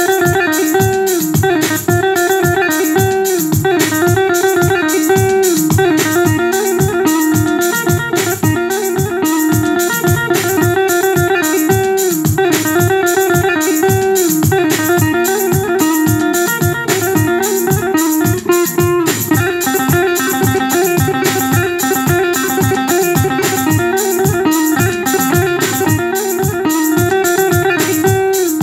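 Yamaha arranger keyboard playing a Turkish buzuq sample voice: a quick plucked-string melody over a steady, evenly beating rhythm accompaniment.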